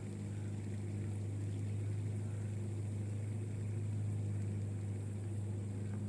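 Fidget spinner spinning fast on its bearing while held in the hand, giving a steady low hum.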